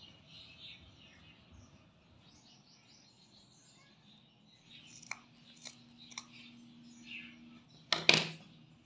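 Small scissors snipping through yarn fringe: a few short, sharp snips about five to six seconds in, then a louder cut near the end.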